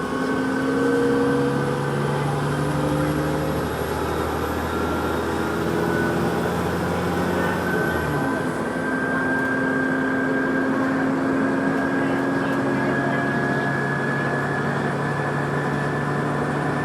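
A vehicle running, with several steady hums that shift in pitch and a high whine that slowly rises throughout; the deepest hum drops out about eight seconds in. The whine is an unexplained, odd noise from the vehicle.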